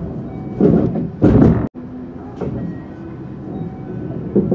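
Cabin sound of a local train standing at a station platform: a steady low hum, with two short loud bumps about a second in and another near the end.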